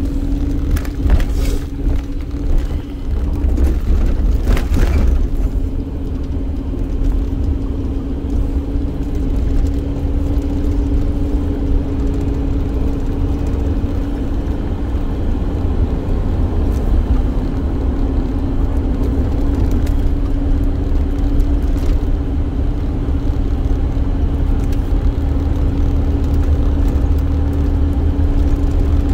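Running van heard from inside the cabin: a steady low rumble with a constant hum, and a few short knocks in the first five seconds.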